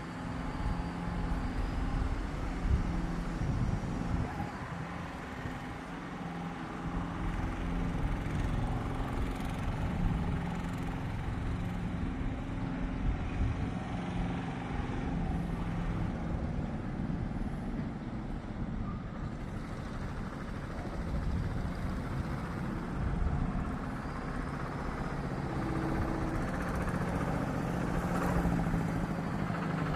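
A motor vehicle's engine running steadily, with an even hiss over it.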